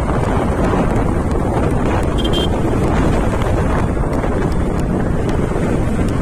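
Steady wind buffeting the microphone as it moves along a road at speed, a dense low rumble throughout. A short faint high tone sounds about two seconds in.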